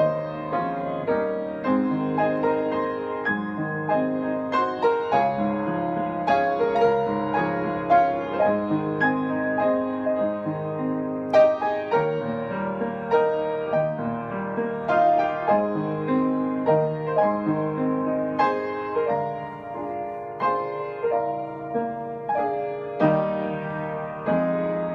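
Piano music: a steady flow of notes and chords played without a break.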